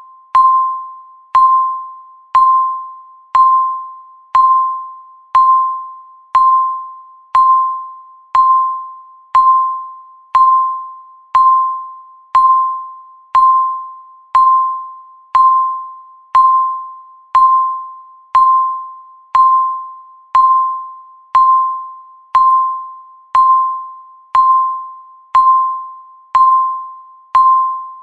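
Countdown timer's electronic beep, one per second: a single chime-like tone with a sharp attack that dies away before the next one, marking each second as the count runs down.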